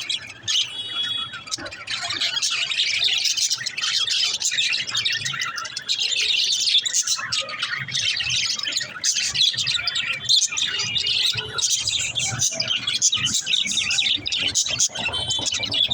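Pet budgerigars chirping and chattering, several birds at once, without a break.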